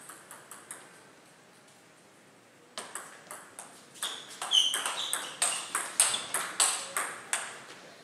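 Table tennis rally: the ball clicking sharply off rackets and table in quick succession, about three clicks a second, louder as the exchange speeds up. There are a few light ticks at the start and a couple of short squeaks midway.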